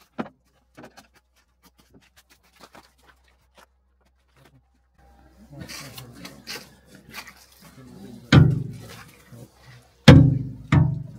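Heavy thumps: one about eight seconds in, then two close together near the end, each dying away over a moment. Before them come quieter rustling and light knocks.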